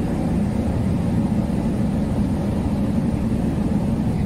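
Steady low rumble of a moored ship's diesel engine running.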